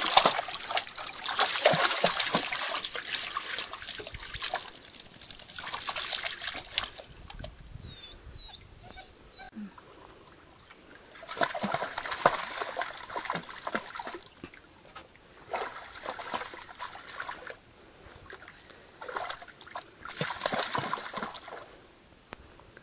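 A Belgian Tervuren/Groenendael puppy splashing through shallow lake water in several bursts of a few seconds each, with quieter spells of trickling water between them.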